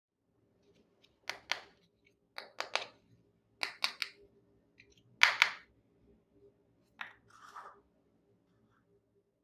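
Small hard plastic miniature kitchen-toy pieces clicking and tapping as they are handled and set down: sharp clicks in quick pairs and threes, about a dozen over six seconds, the loudest pair a little past halfway, followed by a brief soft scrape.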